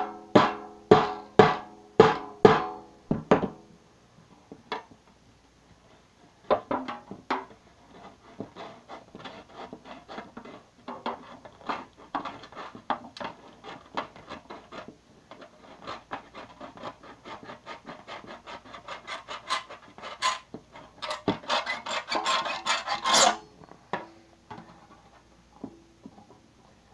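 Knife blade being driven and worked through the thin sheet metal of a cookie tin: about seven sharp strikes, roughly two a second, each with a brief metallic ring, then a long run of quick rasping, scraping strokes as the blade saws through the tin, loudest a few seconds before the end.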